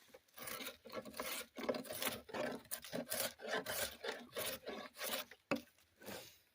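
Drawknife shaving wood: a rapid series of short scraping strokes of the blade across the grain, ending with a single sharp knock about five and a half seconds in.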